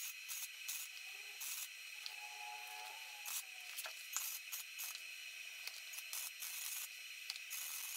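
Electric welding arc crackling and sputtering in uneven runs, fairly faint, while the three-wheeler's broken frame is welded.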